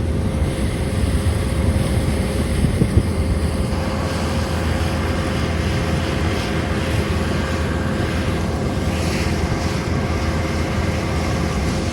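Fishing boat's motor running steadily under way, a constant engine drone with heavy low rumble.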